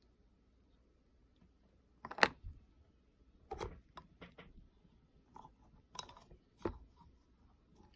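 Handling noises while slime ingredients are added and mixed: a few short, sharp clicks and knocks, as of plastic containers and lids, the loudest about two seconds in and a cluster more near the end.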